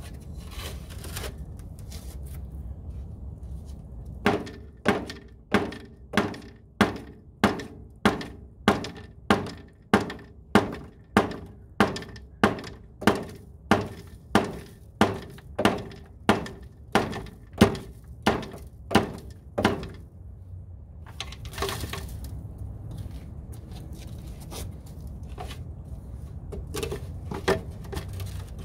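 Heavy rubber mallet striking the end of a black ABS sewer pipe in a steady run of about two dozen blows, roughly three every two seconds, each with a short ringing note from the pipe. The blows drive the pipe, a little at each hit, into the old collapsing Orangeburg sewer line.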